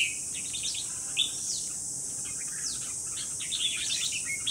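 Caged red-whiskered bulbuls calling: many short chirps and quick downward-sweeping whistled notes, sparse at first and busier in the second half, over a steady high-pitched hiss.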